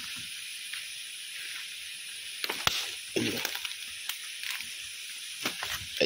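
Footsteps crunching through dry leaves and twigs on a forest floor: a cluster of crackling steps about halfway through and another near the end, over a steady hiss.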